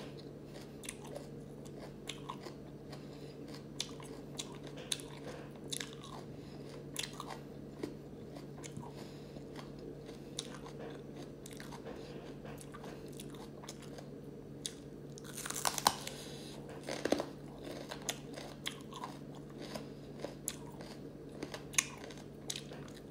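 Raw bitter melon being bitten and chewed: scattered crisp crunches, with a louder flurry of crunching about two-thirds of the way through, over a steady low hum.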